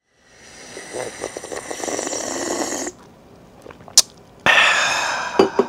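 A man taking a long, noisy slurp from a drink tumbler. A sharp click follows, then a breathy exhale and two quick knocks near the end.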